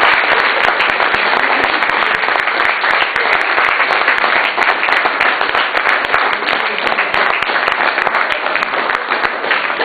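Audience applauding: many hands clapping steadily, easing off a little toward the end.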